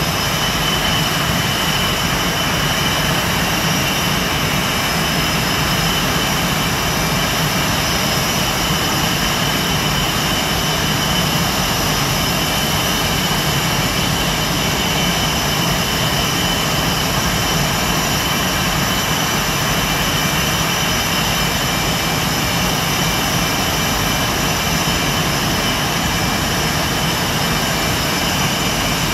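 Blue Angels F/A-18 Hornet jet engines running at ground idle: a steady, loud whine with a high tone over a low rumble, unchanging throughout.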